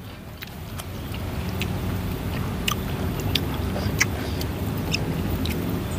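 Close-miked chewing and small mouth clicks from eating by hand, a sharp click every half second to a second, over a steady low motor-like rumble that swells during the first two seconds and then holds.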